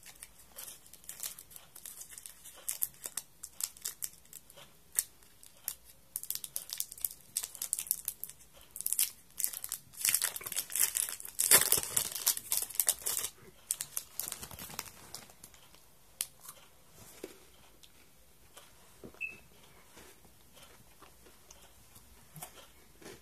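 Kit Kat wrapper crinkling and tearing as it is opened by hand, loudest about halfway through, then dying down to a few faint rustles.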